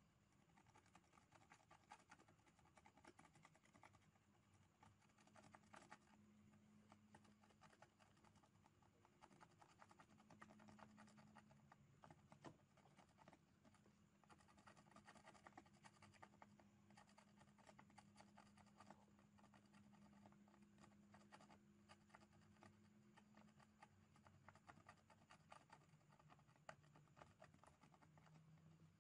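Faint, irregular scratching of a tool working over an ECU circuit board, scraping off corrosion, over a faint steady hum.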